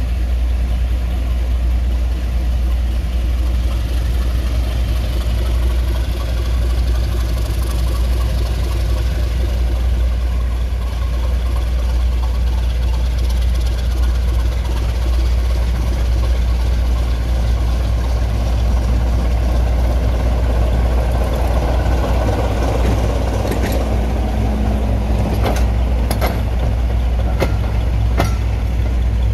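Heavy diesel train engine running steadily with a deep, even drone, with a few sharp clicks near the end.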